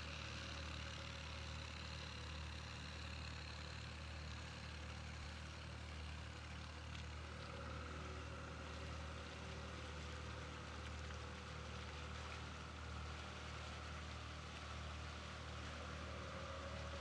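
Workboat's twin outboard motors running steadily at low speed as the boat pulls away across the water.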